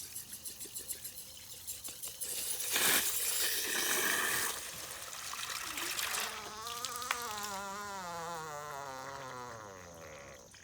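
Water splashing on an air conditioner's evaporator coil, then a wavering buzz from the coil that slowly falls in pitch and fades as the water runs off it. The owners say it might be a refrigerant leak.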